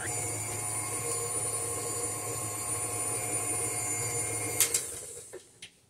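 Electric stand mixer with a flat beater running steadily, creaming butter-like fat, cream cheese and sugar in a steel bowl. About four and a half seconds in it is switched off with a couple of clicks and winds down.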